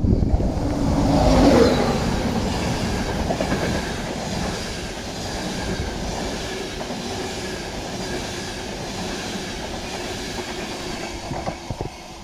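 Class 91 electric locomotive and its rake of Mark 4 coaches passing through at speed. It is loudest as the locomotive goes by about a second and a half in, its pitch dropping, then comes the steady rumble and clatter of the coaches' wheels on the track, easing off near the end.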